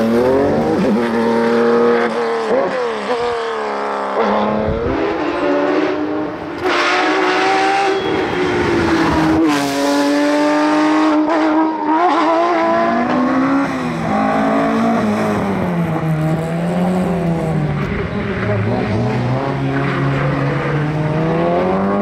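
Rally cars being driven hard one after another, engines revving up with the pitch rising through each gear and dropping back at the shifts. The first is a classic Porsche 911.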